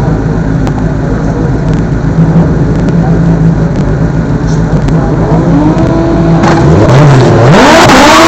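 Race car engine idling steadily, then revved up in rising sweeps over the last few seconds, the revs climbing steeply and loud near the end.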